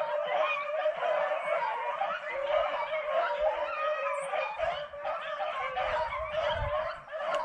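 A pack of rabbit-hunting hounds baying together on a running rabbit's trail, many overlapping voices calling without a break. A low rumble on the microphone comes in about five seconds in.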